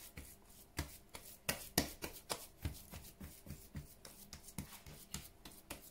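Bare hands patting and pressing a raw ground-meat meatloaf mixture into shape on a wooden cutting board: a dozen or so soft, irregular pats.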